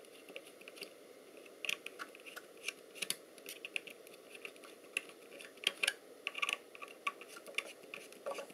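Screwdriver working small screws loose, a little at a time, giving irregular light clicks and scrapes.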